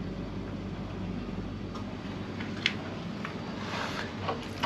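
A steady low engine hum that fades out about two seconds in, followed by a sharp click and a few lighter knocks as the plastic funnel and jerry can are handled.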